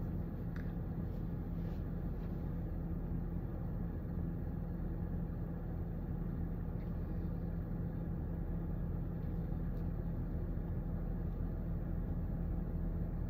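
Steady low hum and rumble of a running car, heard from inside the cabin, with a few faint light clicks.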